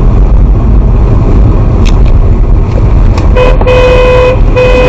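Steady low road and engine rumble inside a moving car, then a car horn sounding two blasts on one note: the first about a second long, starting about three and a half seconds in, and a shorter one near the end.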